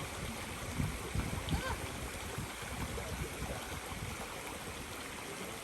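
Steady rush of a flowing river, with an uneven low rumble underneath.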